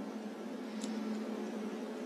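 Steady low hiss of a thermal scope's recording, with one faint click about a second in from handling the scope.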